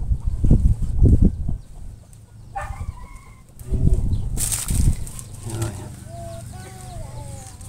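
Chickens clucking in short, bending calls while split bamboo strips are handled, with dull low thumps near the start and again about four seconds in.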